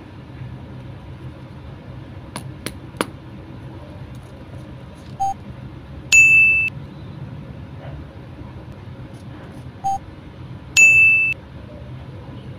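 An electronic sound effect plays twice, about five seconds apart: a short low blip, then a longer, loud, steady high beep. Before these come three quick light clicks, over a low steady hum.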